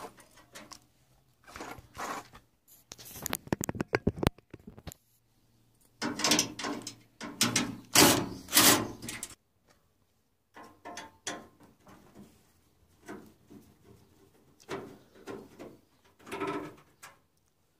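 Metal and plastic parts of a washing machine cabinet being handled and pulled apart: clattering knocks and scrapes of the sheet-metal panel and steel top brace, with a quick run of sharp clicks about three to four seconds in.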